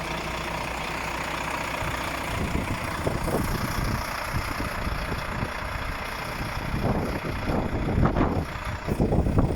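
Volvo FM 400 truck's diesel engine idling, steady at first, then louder and more uneven in the second half.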